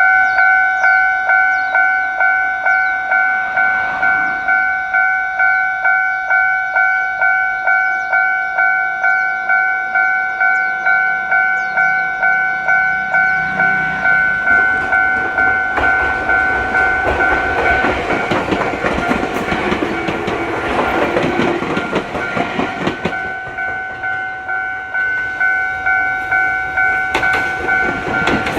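Japanese railway-crossing warning bell ringing its steady, evenly spaced dings, about one and a half a second. From about halfway in, a train passes over the crossing, its wheels rumbling and clattering over the rail joints and drowning the bell for several seconds before the bell is heard again.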